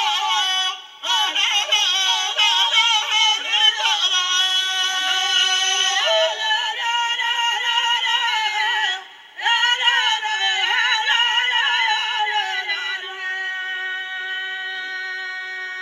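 Moroccan Rokba (ahwach) folk singing: a wavering, ornamented vocal line with no drums, broken off briefly twice. Near the end it settles into steady held notes. The sound is thin, with no bass, as heard off a television broadcast.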